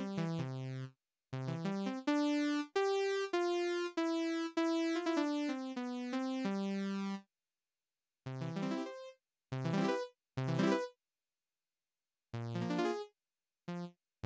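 Software synthesizer playing bright, buzzy notes and low chords, rich in overtones. A run of melody over the first seven seconds is followed by several short stabs of notes, with dead silence between them.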